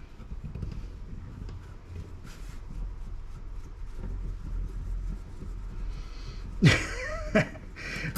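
Faint clicks and scrapes of a screwdriver working on the metal case of a small network security appliance being handled on a bench. About seven seconds in, a short loud sound with a sharply falling pitch comes twice in quick succession.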